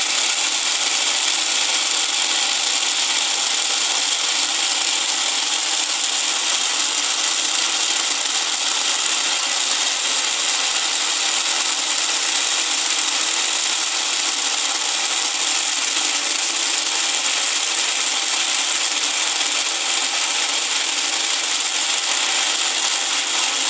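Lionel 497 coaling station's electric mechanism running steadily as it works its coal bucket, a continuous mechanical whirring and grinding.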